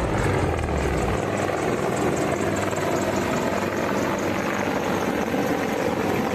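Two military helicopters flying overhead: a steady noise of rotors and engines.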